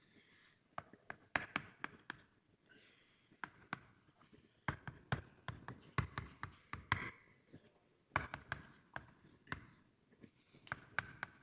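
Writing on a board by hand: irregular light taps and short scratching strokes as an equation is written out.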